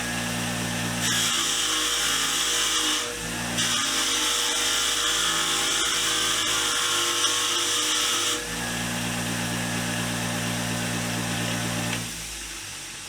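Motor-driven fine brass wire wheel running steadily while a steel wrench is pressed against it twice to strip red spray paint, each contact giving a bright scratchy hiss over the motor hum. Near the end the motor is switched off and winds down.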